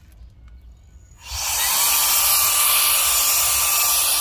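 Handheld battery mini blower switched on about a second in, then running steadily: a loud rush of air with a steady whine from its small fan motor, blowing sand and dust off the ground.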